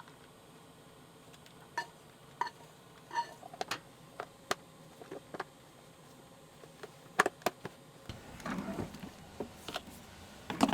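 Scattered light clicks and knocks of dishes and plastic food containers being handled, with denser shuffling and clattering in the last few seconds.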